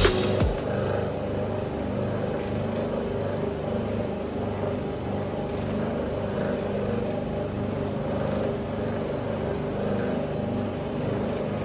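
Electric orbital carpet-cleaning machine running steadily with its pad scrubbing the carpet: a constant motor hum with an even low pulsing.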